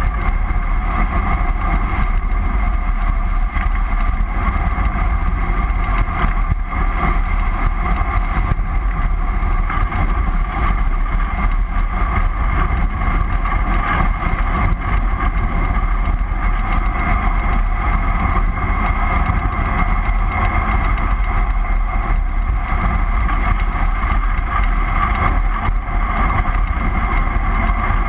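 Steady wind rush over a bicycle-mounted action camera's microphone at descending speed, mixed with road noise, unbroken and loud.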